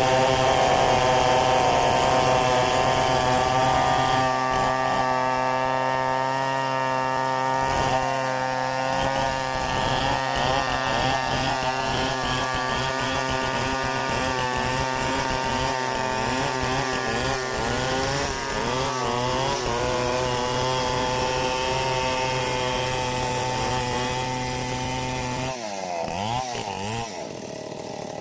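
Stihl 070 two-stroke chainsaw running at high revs while cutting mahogany, its pitch wavering now and then under load. About 25 seconds in the revs drop sharply as the throttle is released and the saw falls back toward idle.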